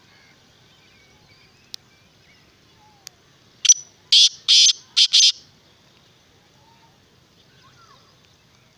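Black francolin calling: one loud phrase of five quick, harsh notes lasting under two seconds, starting about three and a half seconds in.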